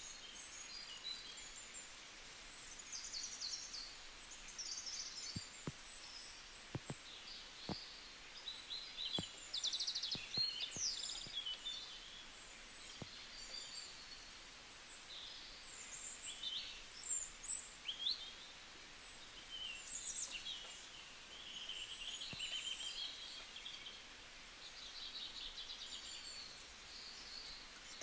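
Birdsong: many short, high chirps and calls from several birds, with a few faint clicks between about five and ten seconds in.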